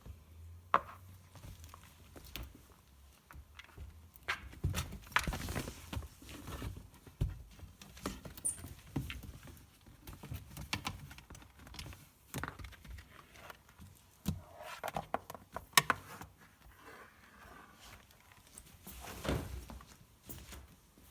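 Cats moving about and playing with a cat wand toy: scattered light taps, knocks and padding steps, with brief rustles about five seconds in and again near the end.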